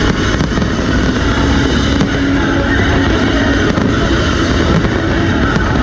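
Music playing while a fireworks display bursts overhead, with a few sharp cracks of exploding shells.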